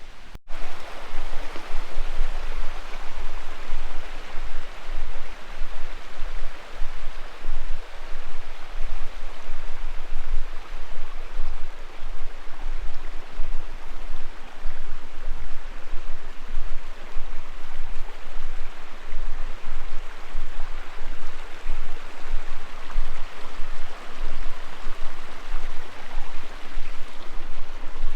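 Creek water rushing over rocks and small falls: a loud, steady hiss, with a low rumble that comes and goes underneath.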